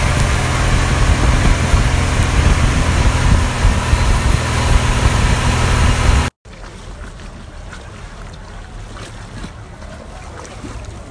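Motorboat running fast: a loud, steady engine hum under rushing wind and spray. It cuts off suddenly about six seconds in to much quieter water lapping, with a few small clicks.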